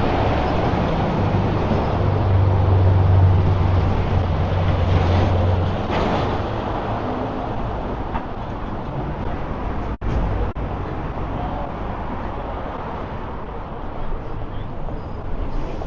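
City street traffic: a motor vehicle's low engine rumble close by for the first several seconds, fading into a steady wash of passing traffic.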